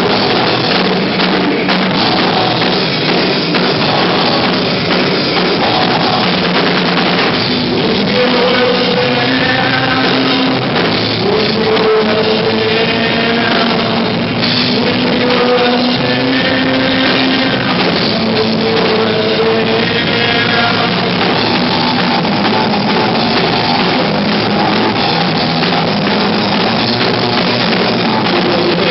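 Rock band playing live with drum kit and amplified instruments; a singer's voice comes in about eight seconds in. The recording is loud, dense and poor in sound quality.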